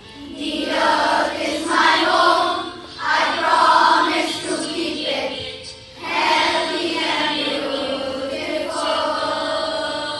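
A group of children singing a song in unison to music, in sung phrases with brief pauses for breath about three and six seconds in.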